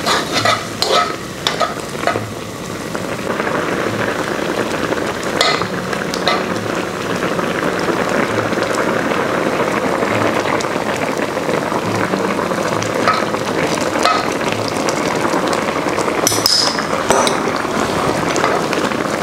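Vegetable-and-mushroom broth boiling hard in a wok, a steady bubbling hiss. A metal spoon stirs through it and clinks against the wok several times in the first couple of seconds and again near the end, as starch-water slurry is stirred in to thicken the boiling broth.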